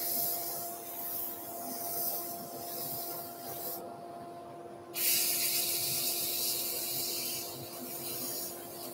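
Abrasive paper rubbing against the rim of a sycamore bowl spinning on a wood lathe: a steady sanding hiss that drops away for about a second near the middle and comes back louder. Under it runs a steady machine hum.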